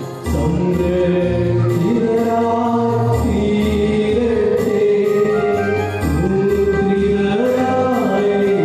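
Slow sung liturgical chant of the Mass, with long held notes over sustained low accompaniment chords that change every second or two.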